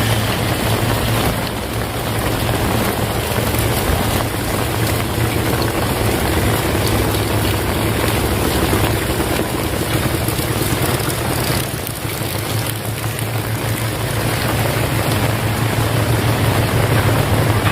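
Heavy rain falling steadily, with a steady low rumble underneath.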